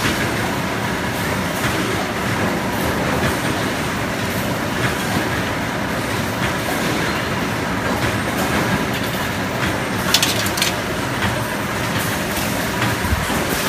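CNC 3D wire bending machine running, its head feeding and bending wire with a steady clattering noise and small clicks. A brief hiss comes about ten seconds in.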